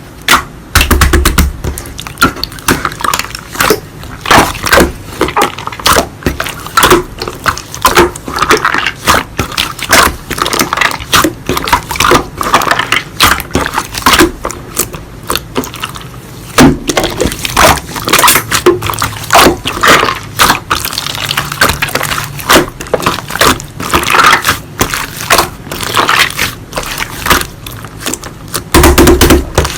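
Slime being pressed and poked by hand, giving a dense, irregular run of sharp clicks and little pops, with a couple of soft low thumps.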